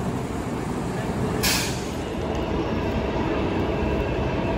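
Delhi Metro train running: a steady low rumble with a short hiss about a second and a half in.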